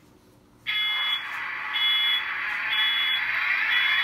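Sound decoder of an HO-scale Athearn Ready-to-Roll GO Transit F59PHI model locomotive starting up, about two-thirds of a second in: a sudden steady rushing noise through the model's small speaker, with a high beep repeating about once a second.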